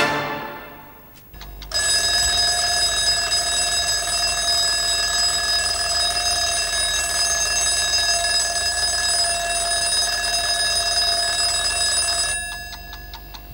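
Orchestral string music fades out, then an alarm clock bell rings steadily for about ten seconds. It stops abruptly near the end, leaving a clock ticking.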